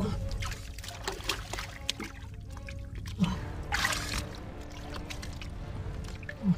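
Hands splashing and scooping in shallow muddy water, with water trickling and dribbling, over background music.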